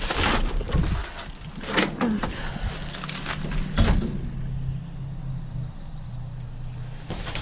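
Things being shifted about in a dumpster: rustling and clattering of cards, cardboard and plastic, with a few sharp knocks in the first four seconds. A steady low motor hum sets in about three seconds in.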